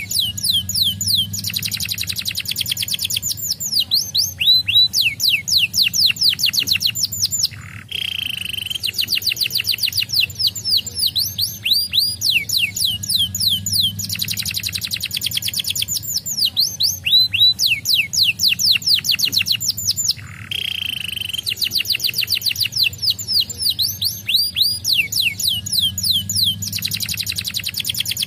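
Domestic canary singing a long, rapid song: fast trills of quickly falling whistled notes. The song breaks twice for a moment into a brief steadier, buzzier note before the trills resume.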